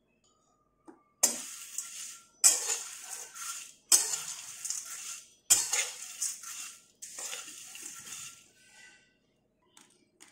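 Flat metal spatula scraping through crisp corn flakes in a metal kadai as they are dry-roasted. Five strokes about a second and a half apart, each a sharp metal scrape followed by a fading rustle of the flakes.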